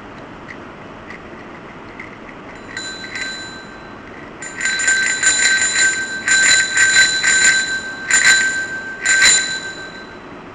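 A mini children's bicycle bell being rung: one short ring about three seconds in, then rapid repeated dings for about five seconds, the bright tone ringing out briefly when the striking stops.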